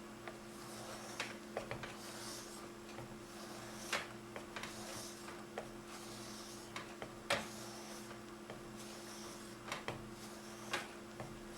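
Knife tip being sharpened: soft scraping strokes of the blade every few seconds, with scattered sharp clicks and taps, the loudest about 4 and 7 seconds in, over a steady low hum.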